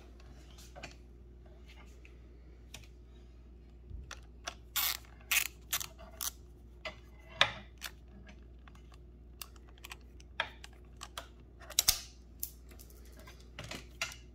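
Irregular light clicks and taps from hands handling tools and small parts close to the microphone, over a faint steady low hum.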